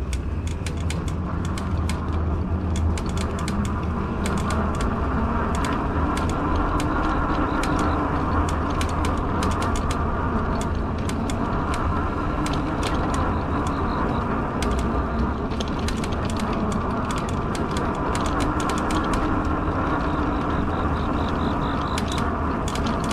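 Fat-tire e-bike with a direct-drive hub motor riding along: a steady rumble of tyres and wind with a hum, and irregular clicking throughout.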